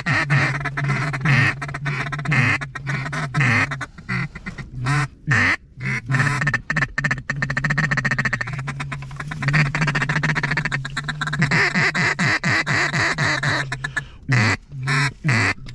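Mallard duck call blown in a rapid, nearly continuous run of quacks and feed-call chatter, with a few short pauses, calling to mallards working the decoys.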